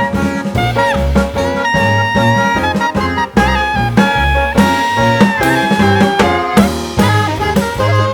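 Background music: an upbeat swing-jazz track with horns playing held notes over a walking bass and drum kit.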